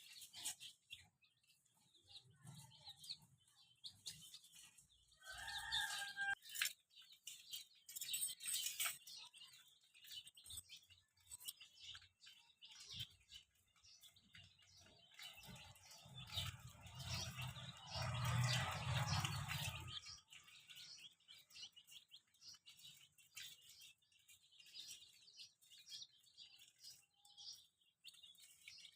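Many baby chicks peeping in short, high chirps, with one stronger call about six seconds in. About two-thirds of the way through, a louder low rumbling noise lasts a few seconds.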